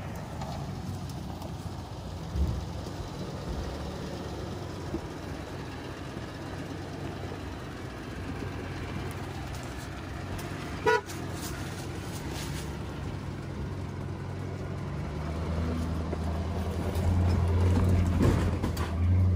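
Ford F-250 pickup's engine running at low revs as the truck crawls over a rock step, its drone growing louder over the last few seconds as it pulls up and over. About eleven seconds in there is a single short, high beep-like tone.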